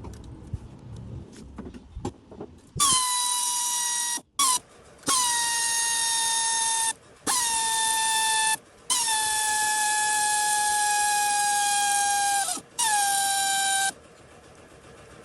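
Horn sounding in six blasts of uneven length, some short and one held for about four seconds, on one high pitch that dips slightly as each blast starts.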